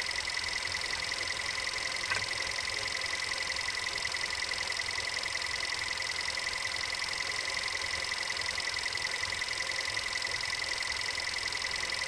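Volkswagen Group 1.2 TSI turbocharged four-cylinder petrol engine running steadily with a knock that the owner is recording as a fault. A single sharper click sounds about two seconds in.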